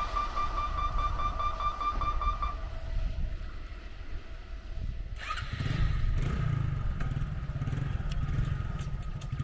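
A rapidly pulsing high tone over a low rumble, then about five seconds in, motorcycle engines idling with an uneven low rumble and a steady high tone above them.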